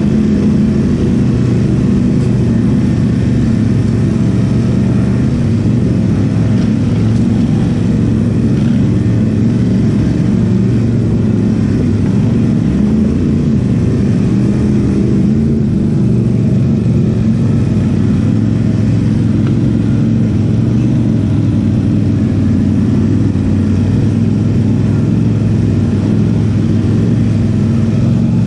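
ATV engine running at fairly steady revs under load, loud and constant throughout.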